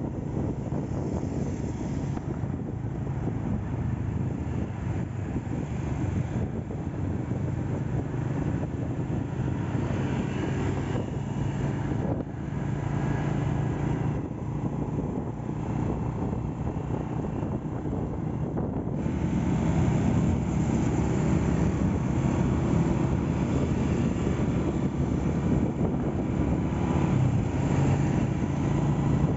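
Honda Astrea Grand's freshly restored single-cylinder four-stroke engine running steadily on the road, with wind rushing over the microphone. It gets louder about two-thirds of the way through.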